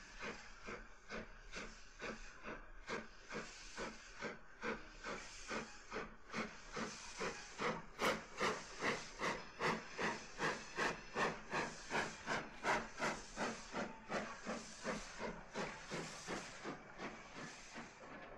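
Steam locomotive chuffing at a steady beat of about two exhaust puffs a second, growing louder about eight seconds in and fading away toward the end.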